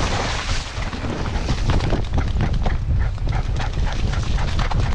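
Dog running flat out with a GoPro strapped to its chest harness: its breathing and paw strikes against a constant rumble and knocking of the harness-mounted camera, with quicker, more regular strokes from about two seconds in.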